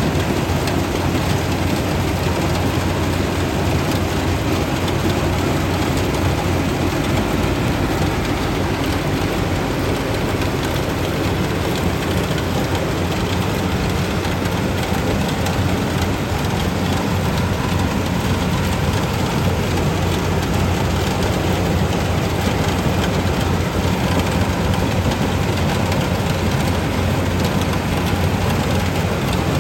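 Yanmar 850 combine harvester running steadily while harvesting rice, a continuous low engine drone with machinery noise over it.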